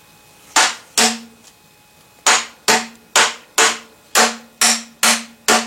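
PVC pipe fittings being whacked down onto pipes, alternating from one side to the other until they seat: ten sharp knocks, two and then after a short pause eight more at about two a second, each leaving a brief low ring.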